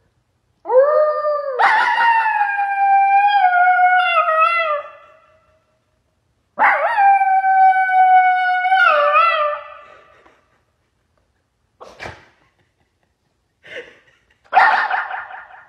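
Blue merle puppy howling into a handheld karaoke microphone: two long howls of about four seconds each, each sliding slightly down in pitch, then a few short yips near the end.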